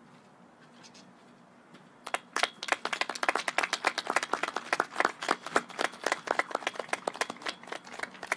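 A small group of people clapping close to the microphone. The claps start about two seconds in and stop near the end.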